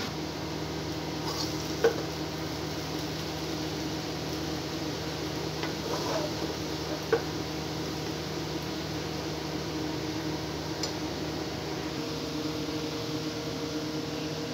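Steady hiss with a low hum, broken by two short sharp clinks, one about two seconds in and one about seven seconds in.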